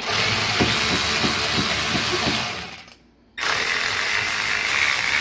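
Milwaukee M12 cordless ratchet running under load as it drives a screw through the dishwasher's top mounting bracket into the underside of the counter. It runs twice, each time for about three seconds, with a short pause about three seconds in.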